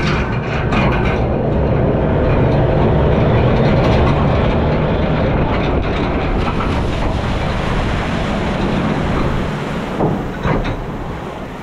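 A mill-chute ride boat rattles over the top of the drop and splashes down into the lake, followed by a long, loud rush of water and spray that slowly dies away as the boat glides on. Two sharp knocks come near the end.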